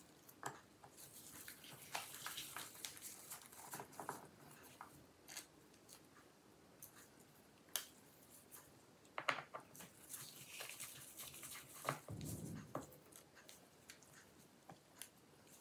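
Faint, scattered small clicks and soft rubbing of gloved hands handling a laptop's bottom cover and its small loose screws, with a brief dull knock about twelve seconds in.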